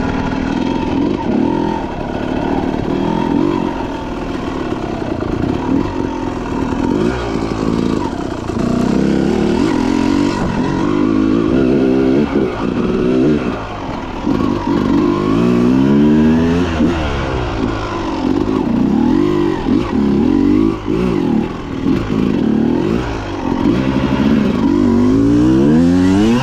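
Dirt bike engine running hard as it is ridden, revving up and dropping back again and again as the throttle opens and closes, with a steep climb in pitch about two-thirds of the way through and again near the end.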